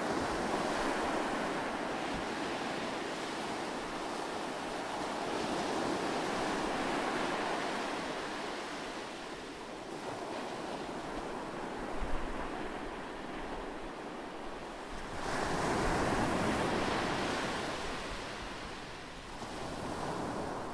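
Ocean surf: a steady rushing noise that swells and ebbs slowly, with its biggest surge about three-quarters of the way through. There is a faint low thump about twelve seconds in.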